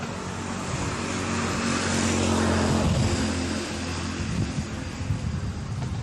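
A motor vehicle's engine hum and tyre noise swelling as it passes close, loudest about halfway through and then easing off, with a few sharp knocks near the end.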